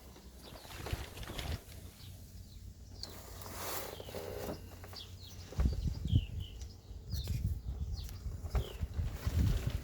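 Small birds chirping, short sliding chirps scattered throughout, over an irregular low rumble and thumping that grows stronger about halfway through.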